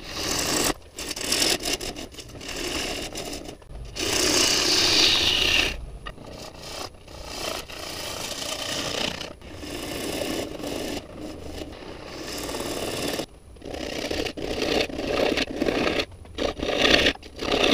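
A gouge cutting the outside of a spinning silver maple crotch bowl blank on a Powermatic wood lathe, shaping its bottom. The cuts come in passes of one to several seconds with short breaks between, the loudest about four to six seconds in.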